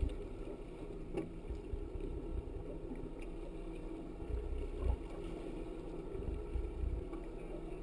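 Outboard motor running steadily at low speed as the boat backs down on a hooked shark, with low gusts of wind rumbling on the microphone now and then.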